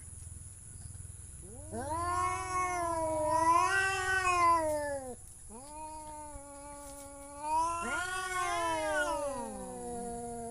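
Domestic cat yowling: two long drawn-out calls, the first starting about one and a half seconds in and lasting three seconds or so, the second starting about a second later and running on past the end.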